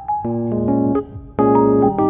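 Background music: electric piano chords in a slow, laid-back beat.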